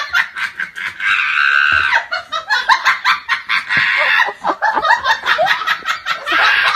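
Hard, rapid laughter in quick bursts, with a long high-pitched squeal about a second in and again near the end.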